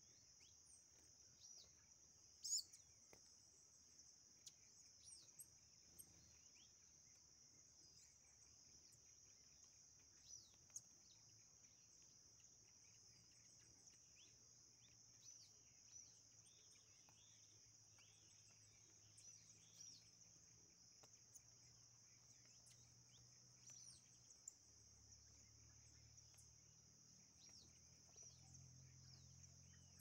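Faint outdoor ambience: insects trill steadily in a high band, with scattered short bird chirps and a few sharp ticks. A faint low hum comes in near the end.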